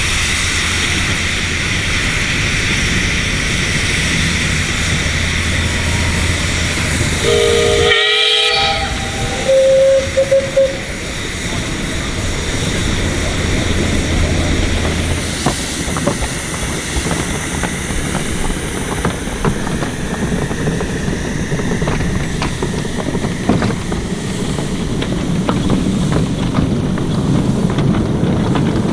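10¼-inch gauge miniature steam locomotives running, with a steady hiss of steam. About a quarter of the way in, a steam whistle blows for about a second and cuts off suddenly, then a second short whistle note follows. In the later part a train runs past close by, with irregular light clicks from the wheels and running gear.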